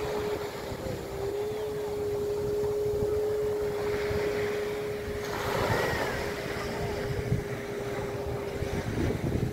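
Motorboat engine running with a steady hum that dips slightly about a second in and stops near the end, over surf washing on the beach and wind on the microphone.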